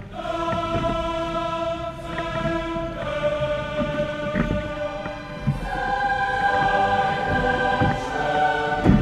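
Background music of long held, choir-like chords that change every few seconds.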